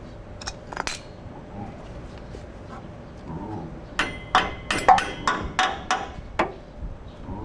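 Metal tool striking metal: a couple of light clicks, then about eight quick, sharp, ringing taps in a row, some three a second, near the end.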